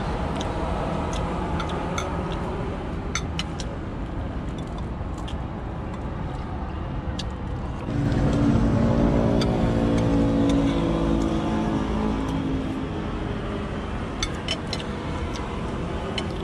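Steady outdoor traffic hum with scattered light clinks of cutlery on plates. About halfway through, a nearby vehicle engine comes in louder, running steadily, then fades over the next few seconds.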